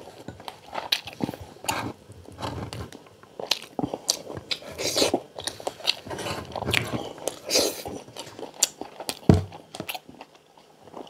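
A man chewing and biting crispy pata (deep-fried pork leg) with rice, close to the microphone: a run of irregular crunches and chewing noises.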